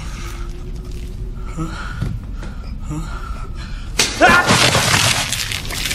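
Film soundtrack of a violent struggle: a low, quiet stretch, then about four seconds in a sudden loud rush of noise with a voice crying out.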